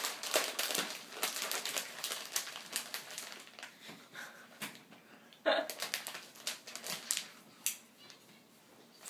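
Crinkly plastic snack bag being handled, squeezed and pulled at, with dense crackling for the first few seconds and sparser clicks after. There is a short voice sound about five and a half seconds in.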